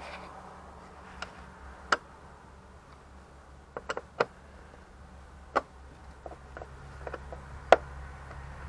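Screwdriver clicking and tapping against the hard plastic engine cover of a 2001 Renault Scenic as it works at the cover's fasteners: about a dozen irregular sharp clicks, the loudest near the end.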